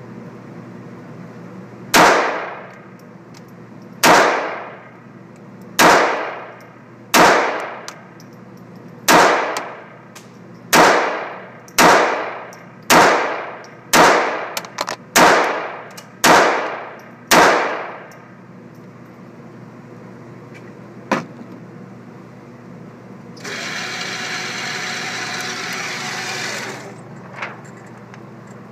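A .22 pistol fired about twelve times in slow, aimed shots one to two seconds apart, each crack ringing briefly in the enclosed range. Later comes a single click, then a steady hiss for about three seconds.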